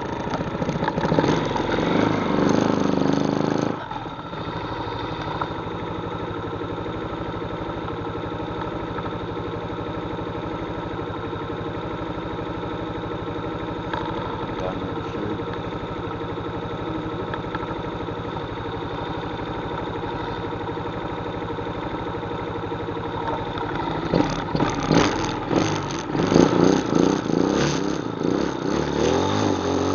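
ATV engine running. It drops abruptly to a steady idle about four seconds in, then revs up and down unevenly again near the end.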